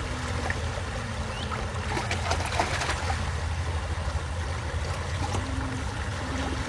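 Creek water running and trickling, over a steady low rumble.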